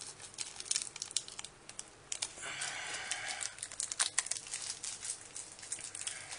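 Thin plastic minifigure packet crinkling and crackling as fingers pick and tear it open, with a denser stretch of rustling and tearing about two and a half seconds in.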